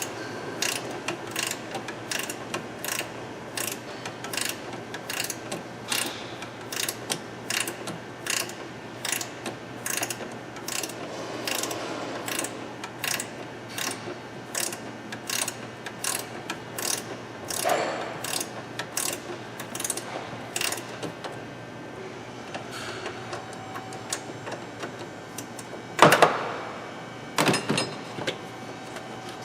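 Flex-head ratcheting wrench clicking steadily, about two clicks a second, as a strut mount nut is backed off. The clicking stops about two-thirds of the way through, followed by two loud metal knocks near the end.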